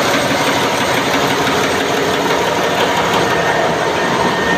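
Marine diesel engine running in a ship's engine room: a loud, steady mechanical din that does not let up.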